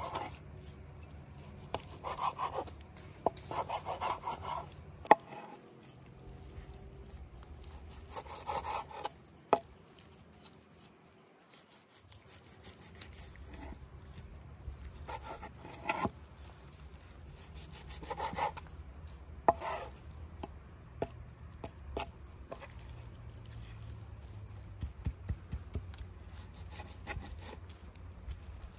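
Knife slicing raw beef on a wooden cutting board: short spells of back-and-forth cutting strokes, with a few sharp taps of the blade against the board.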